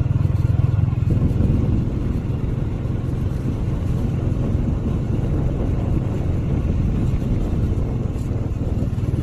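Engine and road noise of a moving motor vehicle, heard from on board as a steady low rumble that eases slightly after about a second and a half.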